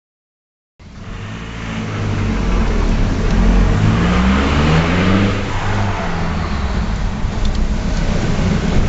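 Ford Mondeo TDDi's four-cylinder diesel engine, running through a straight-through turbo-back exhaust with no silencers, starting a second in and swelling over the next two seconds as it revs, its note shifting up and down. A rushing hiss from the turbo sits over the exhaust note.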